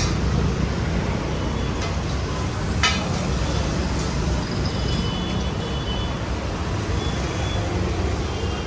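Steady low rumble of street background noise, in the manner of road traffic, with a single sharp click about three seconds in.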